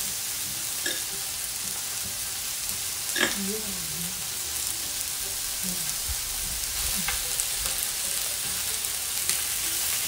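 Lamb chops and sliced scallops sizzling on an electric grill plate, with a few light clicks of metal tongs as the scallops are laid down. The sizzle grows a little louder in the second half as more scallops go onto the hot plate.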